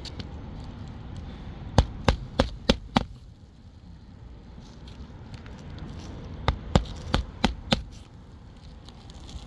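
Hammer driving roofing nails into a replacement shingle: two quick runs of five sharp strikes, about four seconds apart.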